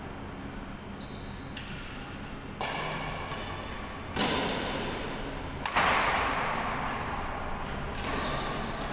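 Badminton rally: rackets striking a shuttlecock about five times, roughly every one and a half seconds, each sharp hit echoing in the hall.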